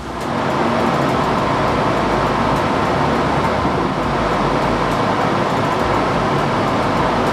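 Kitchen range hood extractor fan running with a steady, loud rushing noise.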